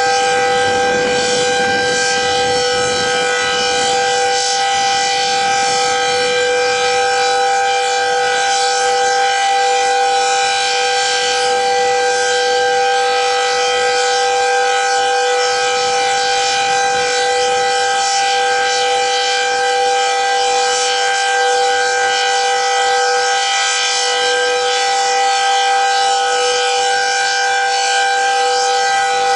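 Decot Red Arrow Model 12 outdoor warning siren sounding the full alert signal: a loud, steady two-note chord held at constant pitch, without rising or falling.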